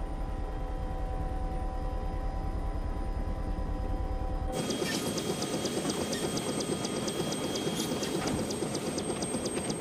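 Helicopter running: first a low rhythmic rotor throb with steady engine tones, then, after a sudden change about four and a half seconds in, a closer helicopter with a rapid rotor chop and a steady high whine, its rotor turning while parked on the ground.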